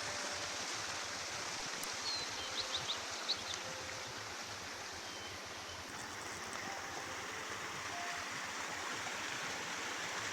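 Water flowing steadily with an even rushing sound, the running water of a stream or channel. A few small clicks and faint short chirps come about three seconds in.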